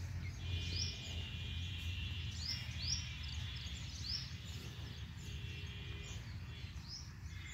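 Outdoor ambience with birds calling: short rising chirps repeated every second or so, a steady high trill in two stretches, over a constant low rumble.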